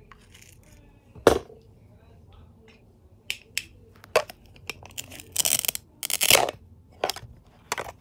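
Plastic toy food pieces being handled and knocked on a plastic toy cutting board: sharp plastic clicks and taps, the loudest about a second in. Two short rasping rips come about five and a half and six seconds in, the Velcro joining the toy's halves being pulled apart.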